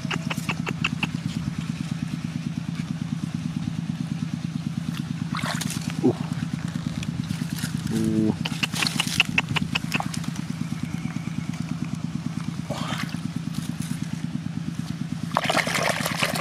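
A small engine running steadily with a fast, even pulse. About a second before the end, wet mud and water slosh as a hand digs into the muddy hole.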